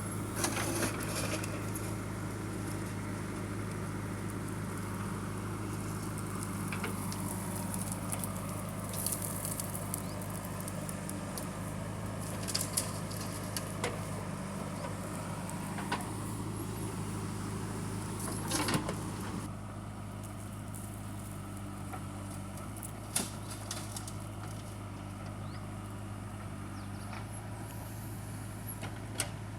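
Heavy diesel engine of earth-moving machinery running at a steady low drone, with scattered knocks and rattles, likely from loading work; the overall level drops slightly about two-thirds of the way through.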